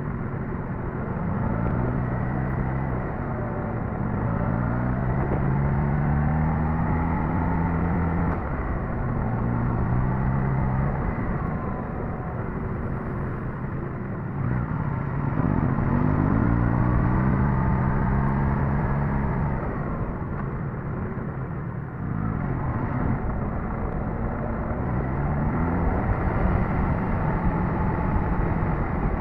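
Suzuki GSX-S1000GT's inline-four engine running on the move, its pitch rising and falling several times as the rider accelerates and eases off, over a steady rush of wind and road noise.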